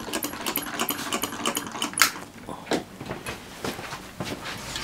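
Model solenoid engines running with a rapid, even ticking clatter, about five clicks a second, which breaks off about two seconds in with a louder click and then only a few scattered clicks.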